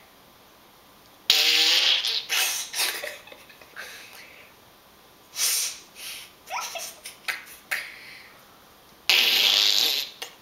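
A boy making loud snorting noises through his nose: a long snort about a second in, a run of shorter snorts and snuffles through the middle, and another long snort near the end.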